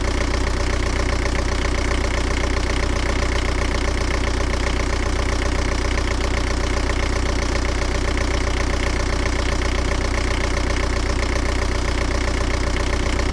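An engine idling steadily, with a fast, even firing rhythm and a deep low hum that does not change in speed or loudness.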